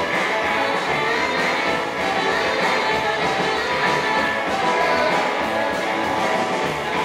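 Live rockabilly band playing loudly and continuously in a large hall.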